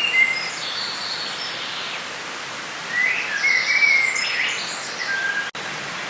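Forest ambience: songbirds singing short, gliding chirping phrases over a steady background hiss, with a burst of song at the start and another about three seconds in. The sound drops out for an instant near the end.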